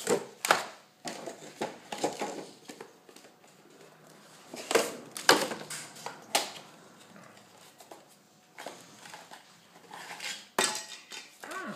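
A small cardboard retail box being opened and its plastic contents handled: irregular clicks, taps and rustles, with a few sharper knocks.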